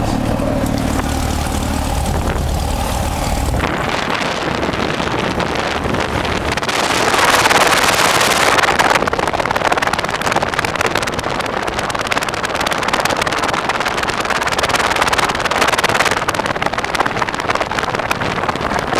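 Cessna 172's piston engine running with a steady low hum. About three and a half seconds in, the sound changes suddenly to a loud rushing noise of air buffeting the microphone, which is loudest a few seconds later.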